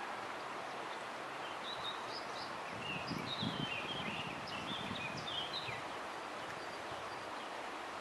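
Steady rush of a fast mountain river, with small birds chirping in short high phrases from about two seconds in until about six seconds in.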